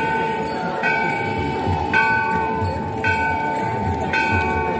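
Temple bell struck at a steady pace for the evening aarti, about once a second, four strikes, over a continuous ringing tone. A regular low drum-like beat sounds underneath.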